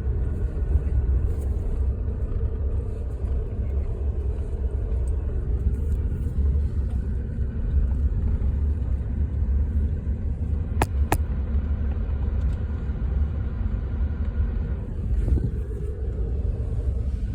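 Steady low rumble of a vehicle driving slowly, heard from inside the truck's cab, with two short clicks about eleven seconds in.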